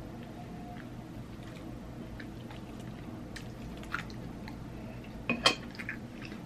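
Quiet eating sounds: chewing, with a few short sharp clicks of dishes or cutlery, the loudest about five and a half seconds in, over a steady low hum.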